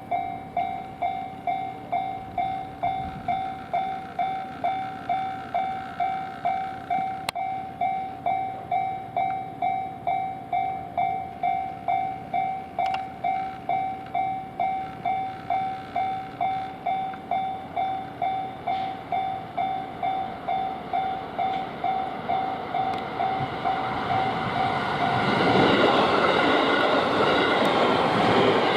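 Japanese level crossing's electronic warning bell ringing steadily at about two dings a second. Near the end a train reaches the crossing and its passing noise swells over the bell.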